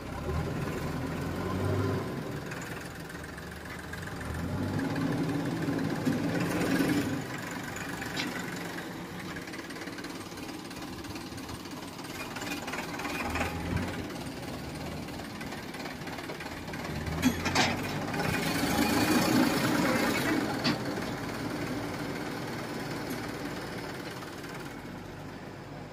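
JCB backhoe loader's diesel engine running, rising twice in longer swells as it works under load, with a few sharp knocks in between.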